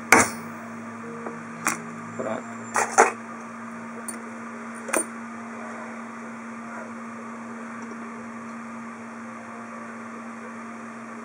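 A hammer tapping a small watchmaker's screwdriver against an aluminium transistor heatsink to mark the spot for drilling: one sharp tap at the very start and a few lighter knocks over the next five seconds, over a steady low hum.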